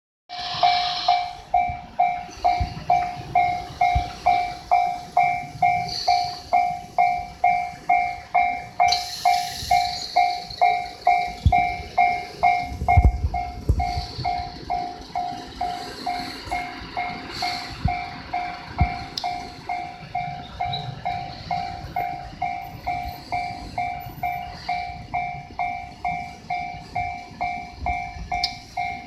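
Japanese level-crossing warning bell ringing steadily, an even two-tone ding a bit under twice a second, while a freight train passes over the crossing with a low rumble and wheel clicks over the rail joints, heaviest around the middle.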